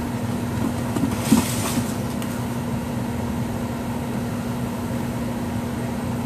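Steady low machine hum of a shop's room tone, holding one constant low tone, with a brief rustle or scuff just over a second in.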